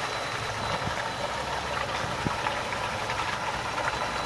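Boat under way: its outboard motor running steadily, with water washing along the hull.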